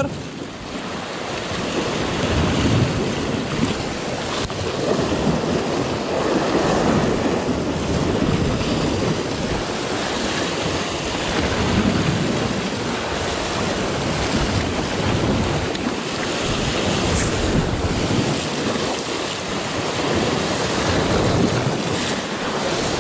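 Sea waves washing and breaking against shoreline rocks, a steady rushing surf that swells and ebbs, with wind buffeting the microphone.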